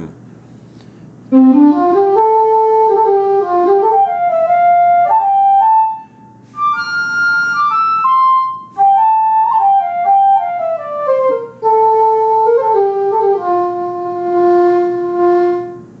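Virtual silver flute from the Songbird iPhone app, blown and fingered on the phone, playing a flowing melody with a light room reverb. It starts about a second in, breaks off briefly twice, and ends on a long held low note.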